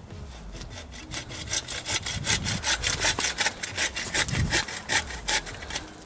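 Hand saw cutting through wood in quick, even back-and-forth strokes, about four a second. It starts about a second in and stops shortly before the end.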